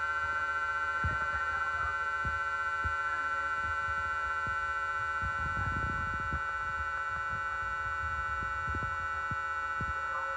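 Electric traction equipment of a Z 50000 (Francilien) electric multiple unit giving a steady whine of several high tones that hold the same pitch, over a low rumble with scattered short low knocks.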